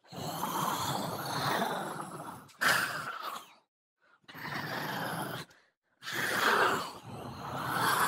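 Horror sound effect of a monster's heavy breathing: four long, noisy breaths with short silences between them.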